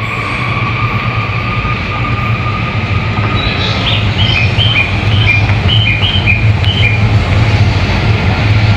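Electric commuter train running at a station platform: a steady low hum, with a high whine that fades out in the first few seconds. In the middle comes a quick run of high electronic chime notes while the train noise grows louder.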